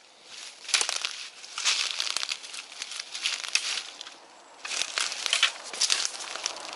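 Footsteps crunching through dry fallen bamboo leaves and dead stalks, a crackling crunch with each step and a short lull about four seconds in.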